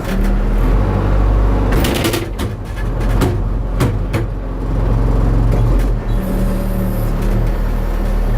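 Case 590 Super M backhoe loader's diesel engine running steadily, with several sharp clanks about two to four seconds in.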